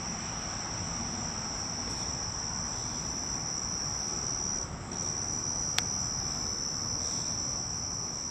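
Crickets trilling steadily: one continuous high-pitched trill that drops out briefly a little before the middle and resumes. A single sharp click cuts through about six seconds in.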